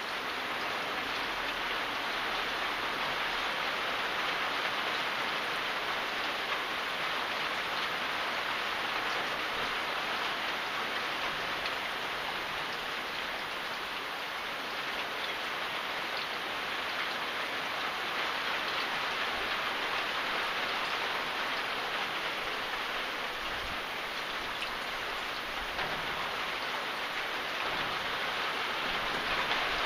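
Steady rain falling, an even dense hiss of many drops with no change in intensity.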